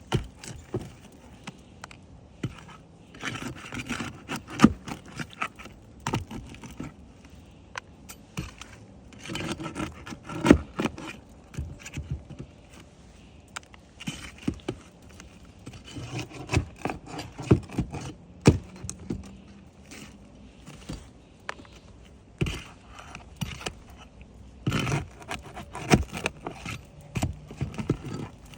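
Roof shingles being pried up and handled in a repairability test: irregular scraping with sharp cracks and clicks as the shingles' seals break loose.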